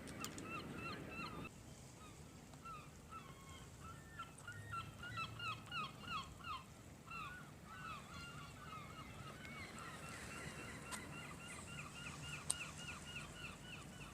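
Gulls calling: a long run of short, repeated cries, several overlapping at times, going on for over ten seconds. A rushing noise underneath drops away about a second and a half in.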